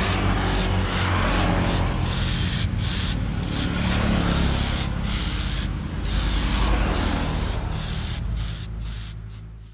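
Aerosol spray-paint can hissing in a run of short sprays with brief breaks, coating a subwoofer box in black paint, over a low rumble; the sound fades out near the end.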